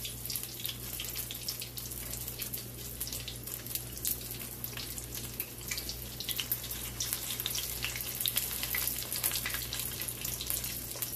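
Saltfish fritter batter frying in hot oil: a steady sizzle with a dense, irregular crackle of small pops.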